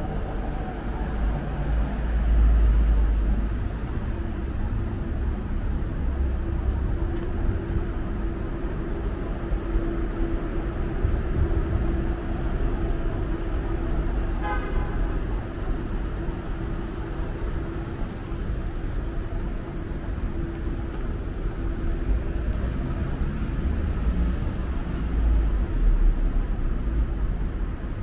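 City street traffic noise: a steady mix of passing cars and buses. Heavier low rumbles come about two seconds in and again near the end as larger vehicles go by.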